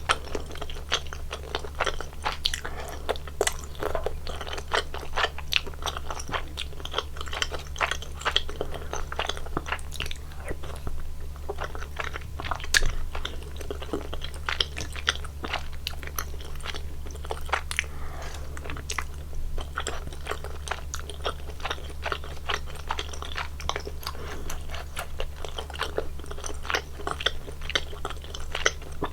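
Close-miked chewing of spicy soup tteokbokki: chewy rice cakes worked in the mouth with a dense, irregular run of wet mouth clicks and smacks, over a steady low hum.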